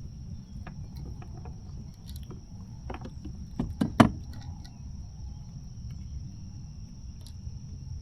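Knocks and clicks of handling fish and tackle in a kayak, over a low steady rumble. A few sharp knocks come close together about three and a half to four seconds in, the last the loudest. A thin, steady high-pitched tone runs underneath.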